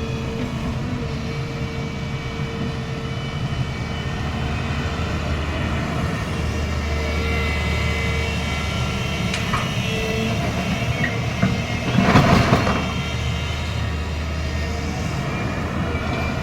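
Heavy diesel construction machinery running steadily with a deep engine drone, and one louder rushing burst about twelve seconds in.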